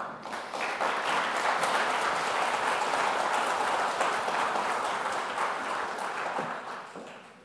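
Audience applauding: the clapping builds within the first second, holds steady, then fades away near the end.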